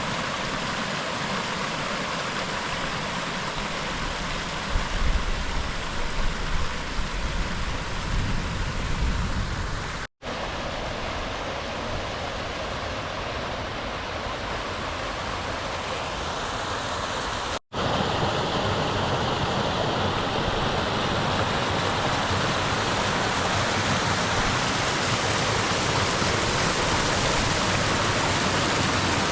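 Strong wind rushing past the microphone, buffeting it in gusts during the first third, then a steadier rushing hiss. The sound cuts out briefly twice.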